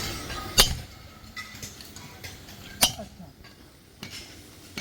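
Hard objects being handled, with a few sharp clinks and knocks. The two loudest come about two seconds apart, over a faint background.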